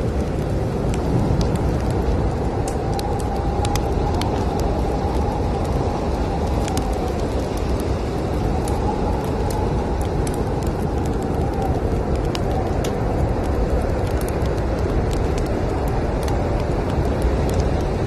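Snowstorm wind making a steady low rumble, with a faint howling whistle that rises and falls now and then, over the scattered crackles and pops of a wood fire.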